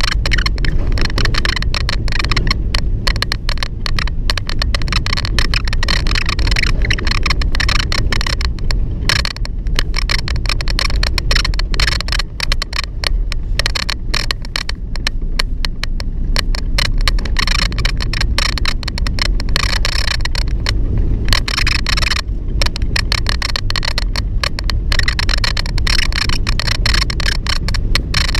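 A vehicle's steady low driving rumble, with the door squeaking and rattling rapidly close to the microphone.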